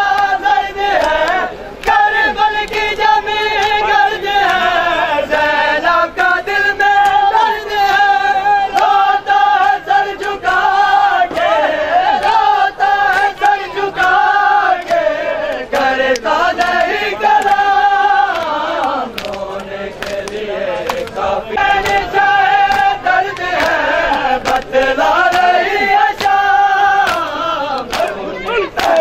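Men chanting a nauha, a Shia mourning lament, in long held lines that glide between pitches, with many sharp slaps of hands beating chests (matam) throughout.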